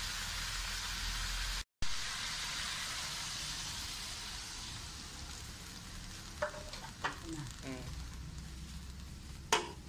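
Pork and vegetables sizzling in a wok, the hiss breaking off briefly about two seconds in and then slowly dying down as water is added to the pan. A few short clinks near the end.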